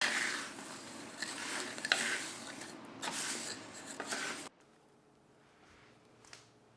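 Dry rustling and scraping with a few sharp clicks, cut off suddenly about four and a half seconds in, then faint room tone with a single soft tick.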